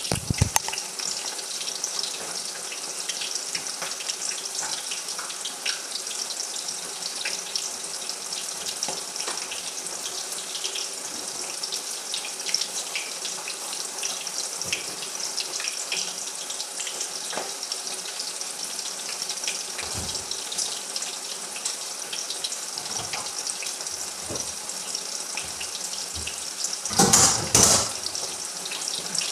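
Whole peeled potatoes deep-frying in hot oil in a steel kadai: a steady sizzle with scattered small crackles. A louder burst of noise lasting about a second comes near the end.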